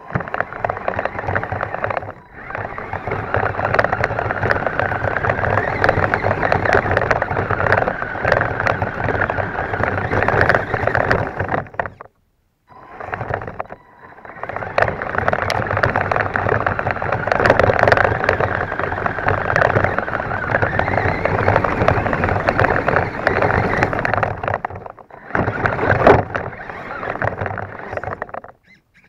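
Himoto 1:10 RC truck driving through grass, heard from a camera on the truck: its motor and drivetrain run under throttle while grass and twigs brush against it. The sound cuts out briefly twice, once near the middle and again near the end.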